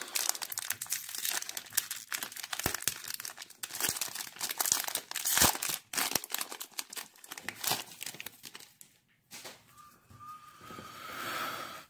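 Foil wrapper of a Topps 2021 Series 1 baseball card pack being torn open and crinkled by hand: a dense run of crackles and rips that thins out near the end.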